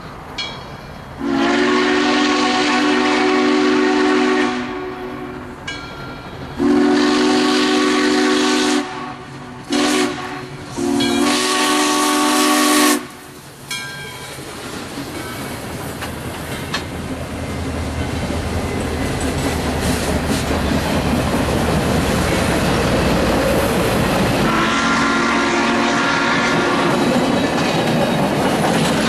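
Southern Railway 630, a 2-8-0 steam locomotive, sounding its chime whistle for a grade crossing in the long, long, short, long pattern. The train then rolls past with steady, growing running noise and wheels clicking over rail joints, and the whistle sounds once more near the end.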